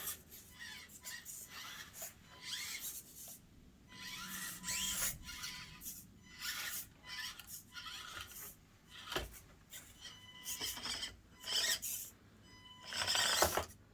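Axial Deadbolt RC rock crawler's small electric drive whining in short bursts of throttle, with scraping and clicking from the truck climbing over the course obstacles.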